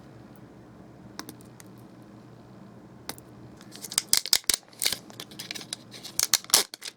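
Sharp crackling and clicking from hands working loose a phone battery and its adhesive tape inside an opened iPhone 6 Plus. A few isolated clicks come first, then a dense run of crackles from about four seconds in.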